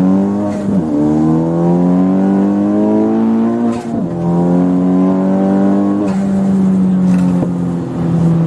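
Turbocharged four-cylinder of a tuned Honda Civic Type R FK8 accelerating hard through the gears. The engine pitch climbs in each gear and drops at upshifts about a second in, near four seconds and about six seconds in. After the last upshift it holds a steady pitch.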